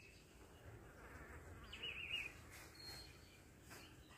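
Near silence: faint outdoor background, with one brief, faint warbling chirp about two seconds in.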